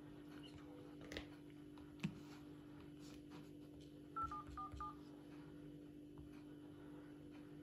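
Smartphone dial-pad touch tones: four short beeps in quick succession, one for each digit tapped in, a little past halfway. Earlier, two light sharp knocks.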